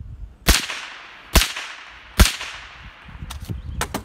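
Three suppressed shots from a 300 AAC Blackout AR pistol with a 9-inch barrel and an AAC 762-SDN-6 silencer, firing 147-grain supersonic factory ammunition. The shots come a little under a second apart, each a sharp report followed by a fading echo.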